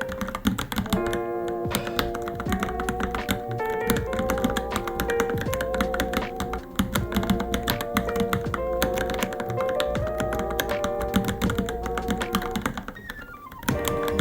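Fast typing on a Varmilo Minilo mechanical keyboard: a dense, irregular clatter of keystrokes over background music, easing briefly near the end.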